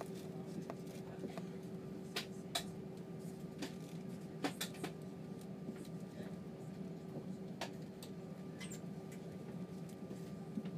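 Steady low hum inside the cabin of an Airbus A320 taxiing with its jet engines at idle, with a few sharp clicks and knocks scattered through.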